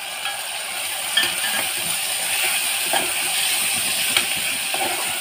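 Soaked field beans and onions sizzling in hot oil in an aluminium pressure cooker as a spoon stirs them, with a few sharp clinks of the spoon against the pot.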